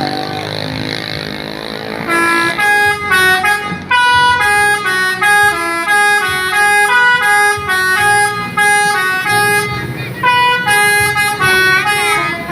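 Bus "telolet" horn, a set of tuned air horns, playing a fast jingle of short notes that hop between pitches, starting about two seconds in after a stretch of noise, with a sliding note near the end.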